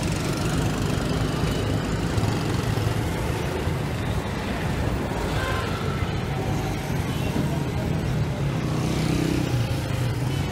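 Steady engine hum and road noise of a vehicle driving along a city street, with other traffic passing close by.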